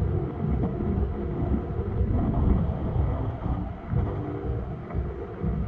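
Wind buffeting the microphone in a low, uneven rumble over the general murmur of a busy city street with no traffic.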